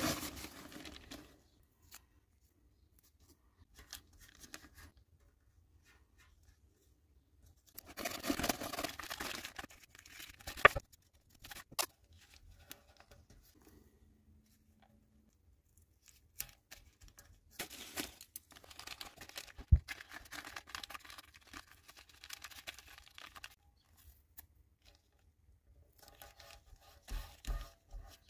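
Masking tape being pulled off the roll, torn and pressed down by hand, in short irregular bursts of rustling and tearing with a few sharp clicks in between.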